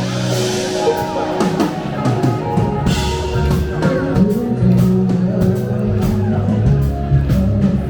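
Live funk and soul band playing in the open air, with drum kit, electric bass and guitar.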